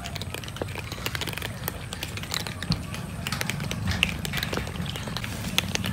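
Several cats crunching dry kibble: many small, irregular crunches and clicks, over a steady low rumble.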